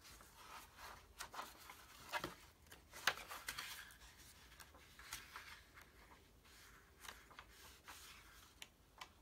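Soft rustling of the paper pages of a thin bird field-list booklet as it is opened and flipped through by hand, with a sharper click about three seconds in.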